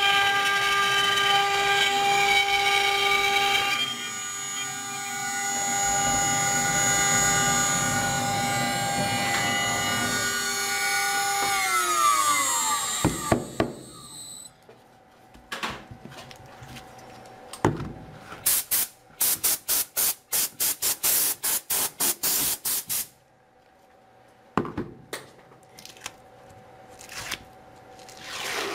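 CNC router spindle running with a steady high whine while it cuts a white board, then spinning down with a falling pitch about twelve seconds in. After a short pause comes a quick run of sharp clicks and crackles, then a few scattered clicks.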